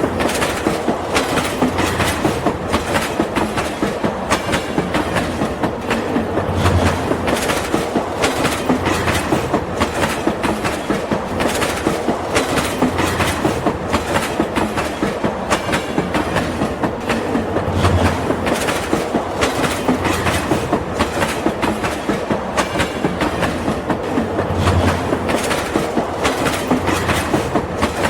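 Toy train running on its track with a steady rhythmic clicking, about three clicks a second, and a low rumble that swells every few seconds.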